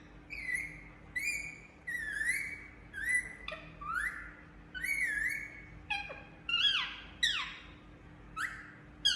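Indian ringneck parakeet calling: a steady run of short, shrill chirps, roughly one and a half a second, each bending up and then down in pitch, with two longer calls that fall steeply a little past the middle.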